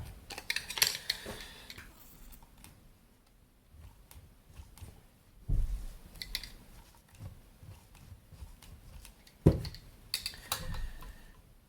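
Clicks, taps and knocks of small parts and hand tools being handled on an aircraft LCD display unit being taken apart, with a dull thump about five and a half seconds in and a sharp knock about nine and a half seconds in.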